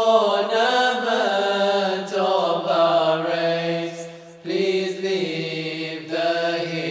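Male voices singing the refrain of an English qasida in a slow, melismatic chant, over a steady low drone. The line breaks off for a breath about four seconds in and resumes.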